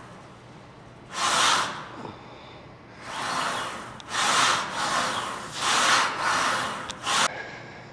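A man breathing hard through the mouth under strain, about six forceful breaths in and out, paced with slow reps of a band-resisted incline press.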